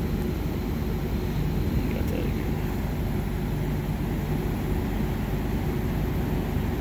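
Mini-split outdoor unit running, a steady low drone of its compressor and fan.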